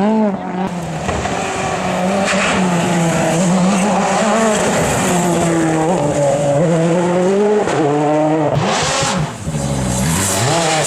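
World Rally Car's 1.6-litre turbocharged four-cylinder engine running hard on a rally stage, its pitch rising and falling with throttle and gear changes. About nine seconds in there is a short rush of noise and a brief drop in the engine note before it revs up again.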